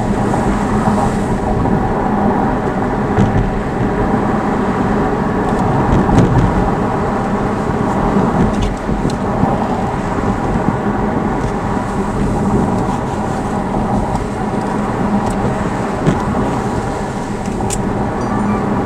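Car driving, heard from inside the cabin: a steady drone of engine and tyre noise.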